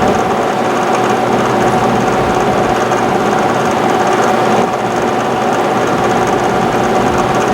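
Drill press running at a slow speed with a 3/4-inch bit cutting into a sway-bar bracket lubricated with cutting fluid: a steady motor hum mixed with the grind of the cut, dipping briefly about halfway through.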